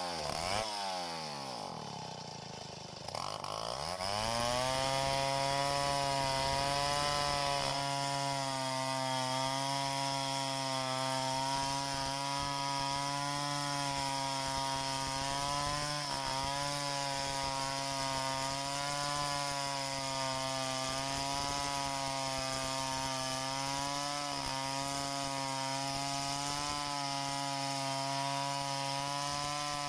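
Gasoline chainsaw rip-cutting lengthwise through a log in freehand milling. Its engine pitch swings up and down for the first few seconds. From about four seconds it holds a steady, slightly wavering note under load as the chain cuts.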